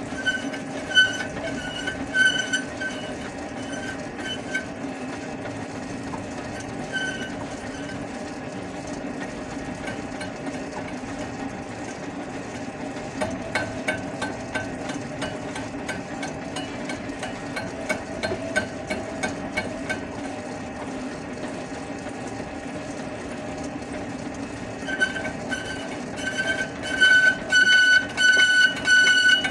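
Lathe running with a steady hum, with short high-pitched squeals now and then. From about 25 seconds in the squeals repeat quickly, about two a second, and become the loudest sound.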